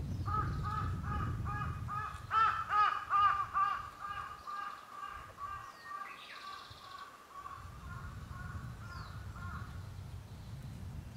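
A crow cawing in a quick run of harsh calls, about three a second, loudest about two seconds in, then trailing off into fainter calls.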